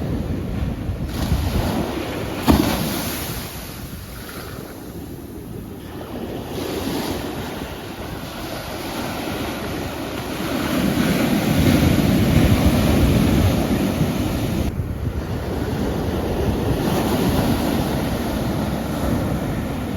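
Sea waves breaking and washing on a shore, swelling and fading, with the loudest surge about eleven to fourteen seconds in. A brief sharp knock about two and a half seconds in.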